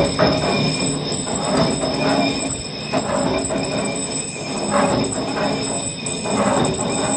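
Cable excavator's hoist drum spun by its hoist motor while a lathe cutting tool turns down the drum's uneven surface: steady mechanical running with thin, high, steady whines, swelling in a regular rhythm about every second and a half.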